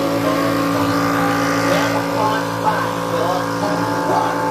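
Yong Heng high-pressure PCP air compressor running with a steady hum.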